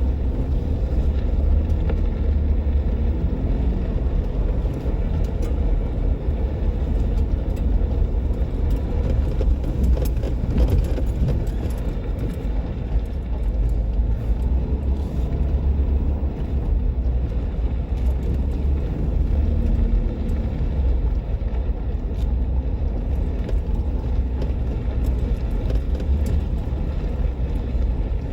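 Jeep Wrangler JK driving on a dirt trail: a steady low rumble of engine and tyres, with a few faint clicks.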